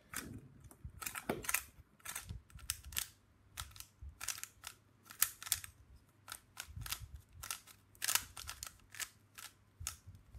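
Plastic 3x3 speed cube being turned by hand during a solve: layers clacking as they turn, in irregular clusters of clicks, several a second.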